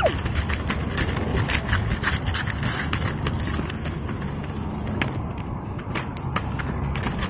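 Scooter wheels rolling over a concrete sidewalk: a steady rumble with frequent short clicks and knocks as they run over the rough surface and joints.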